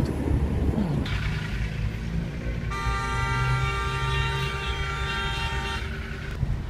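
A vehicle horn sounding one long steady blast of about three seconds, over the low rumble of traffic heard from inside a car.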